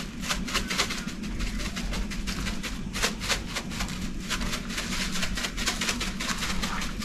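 A spice jar of crushed red pepper being shaken over salmon fillets in a metal baking pan: quick, irregular rattling ticks over a low steady hum.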